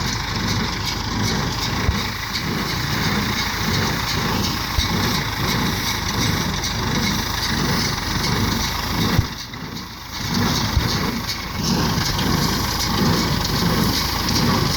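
Fahr 360 square baler working behind a tractor: steady engine running with a regular beat from the baler, roughly twice a second. The sound drops briefly about ten seconds in.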